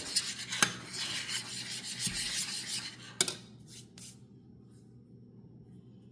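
A metal spoon stirring and scraping around a stainless steel saucepan of praline sauce, with a few clinks against the pan. The stirring stops about four seconds in, leaving a faint steady hum.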